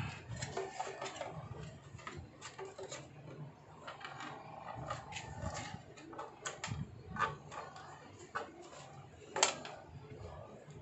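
Hard black plastic motorcycle front fender being handled and turned over, giving scattered light clicks and knocks.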